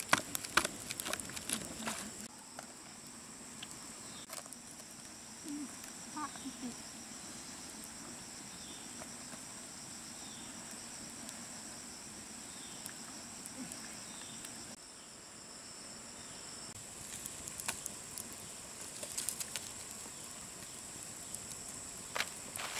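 Steady high-pitched trilling of insects in the open air, with a few faint short chirps. Scattered sharp crackling clicks at the start and again towards the end.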